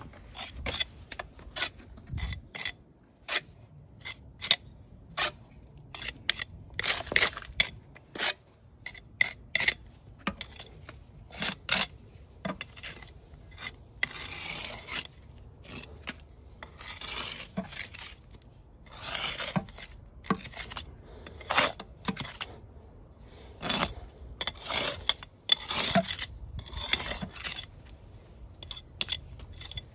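Steel brick jointer run along fresh mortar joints in a brick wall: many short scraping strokes, with a few longer rasping runs in the middle and near the end.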